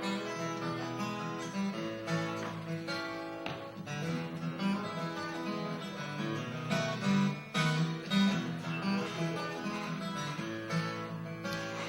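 Acoustic guitar playing a blues intro, picked and strummed in a steady rhythm.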